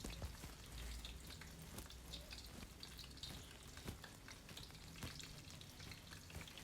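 Prawn vadai, chana dal fritters topped with prawns, frying in hot oil: faint, steady sizzling with scattered small crackles.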